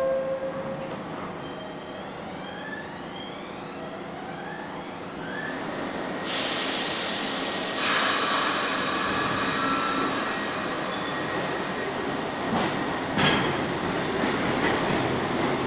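R62A subway train departing a station: a sudden hiss of air about six seconds in, then the train pulling out with its wheels running on the rails. Sharp clunks near the end come as the cars pass over rail joints.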